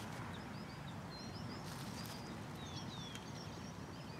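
Small birds chirping again and again in short, quick notes over a steady low rumble of outdoor noise, with a brief hiss about a second and a half in.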